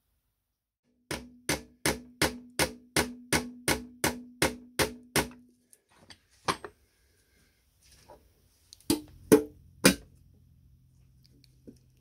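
Light hammer taps on the sheet-metal seed box, about a dozen quick even strokes at roughly three a second over a faint ringing tone. A few single knocks follow, with one more at the end as the lid is pressed shut.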